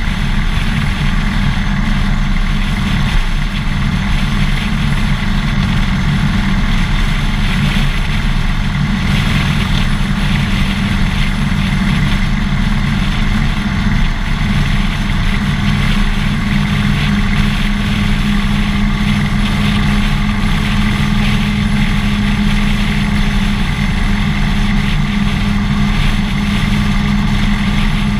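Harley-Davidson Dyna Fat Bob's air-cooled V-twin engine running steadily, heard through a GoPro mounted on the motorcycle.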